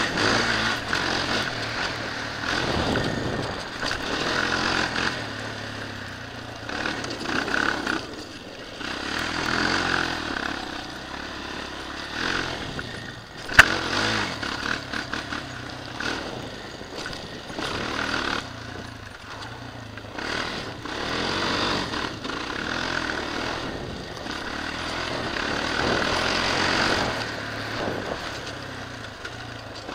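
Suzuki LTZ400 quad's single-cylinder four-stroke engine revving up and falling back again and again with the throttle as it is ridden around a dirt track, heard from a helmet-mounted camera. A single sharp knock about halfway through.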